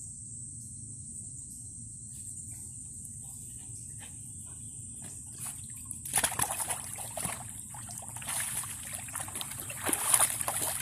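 Water splashing and sloshing as a puppy swims, starting about six seconds in and coming in uneven bursts.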